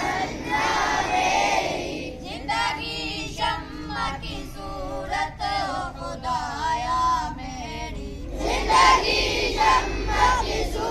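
Schoolboys reciting a dua (supplication) aloud in a sing-song chant. The gathered pupils call out together loudly in the first couple of seconds and again from about eight seconds in, with a clearer chanted line between.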